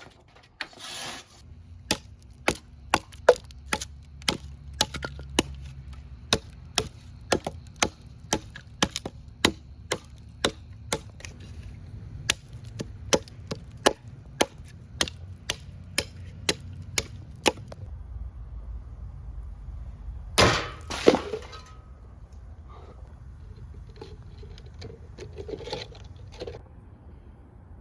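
A chopping knife hacking into wood, in a steady run of sharp chops about two a second for some fifteen seconds. After a short pause comes one louder, longer splintering crack, followed by a few faint knocks.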